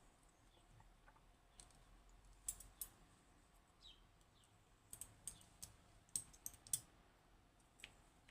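Faint, sharp metallic clicks of a Western Electric 30B lever lock's parts being handled as it is taken apart, coming in scattered groups of two or three.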